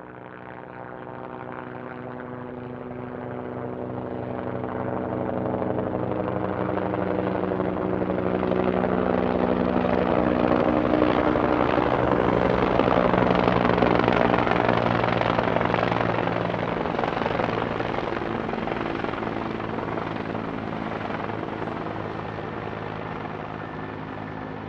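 Helicopter approaching from far off, its rotor and engine growing steadily louder to a peak about halfway through, then passing and fading away, the pitch dropping as it goes by.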